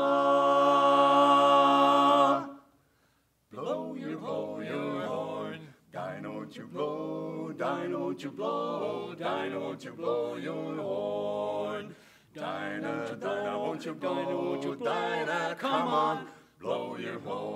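Male barbershop quartet singing a cappella in close four-part harmony. A loud held chord cuts off about two and a half seconds in, followed by a second of near silence. The singing then resumes in short, rhythmic phrases.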